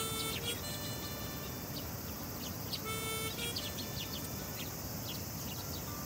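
A flock of Eurasian tree sparrows chirping, with short scattered chirps throughout, over background music that holds a few sustained notes.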